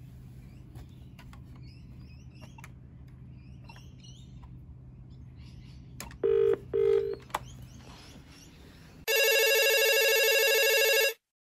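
Desk phone in use: faint clicks of the handset and keypad, two short beeps about six seconds in, then an electronic desk phone ringtone rings loudly for about two seconds, a call coming through, and starts again after a short pause.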